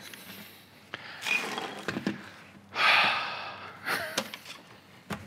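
A man's breathy exhales, like short laughs, three of them, the loudest about three seconds in, with a few small clicks from handling a plastic device.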